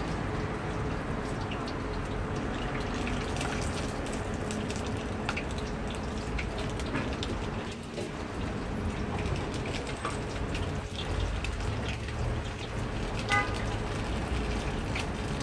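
Dough balls deep-frying in a wide steel pan of hot oil: a steady sizzle. A brief pitched toot sounds near the end.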